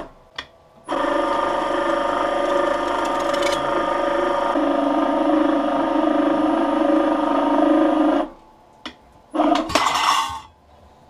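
Electric motor-driven sheet-metal rolls, driven through a gearbox and chain, running with a steady whine of several tones as they flatten a curved stainless steel sheet. The machine starts about a second in, its tone shifts slightly about halfway, and it stops well before the end, followed by a brief clatter.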